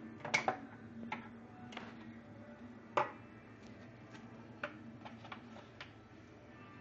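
Kitchen shears snipping through a striped bass's fins: a string of sharp, irregular clicks, the loudest about three seconds in.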